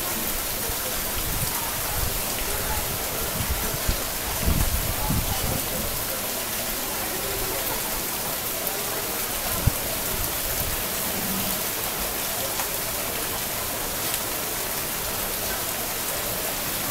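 Heavy rain pouring steadily, a dense even hiss. A few low thumps come about four to five seconds in, and a single sharp knock near ten seconds.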